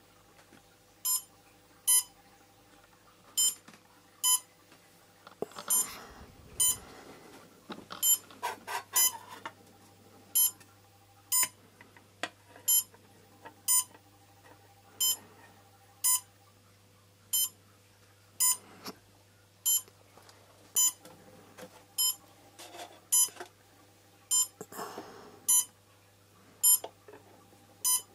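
Short electronic beeps from a quadcopter's onboard electronics with the battery connected, coming about once or twice a second at uneven spacing. The clear plastic cover over the electronics rustles as it is handled a few times.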